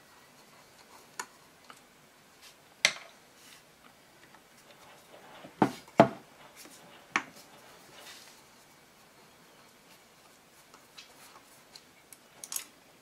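A handful of sharp metallic clicks and knocks from a screwdriver and small parts on a rack of four Keihin CV carburettors as screws are undone to take off the choke slide. The loudest two come close together about six seconds in.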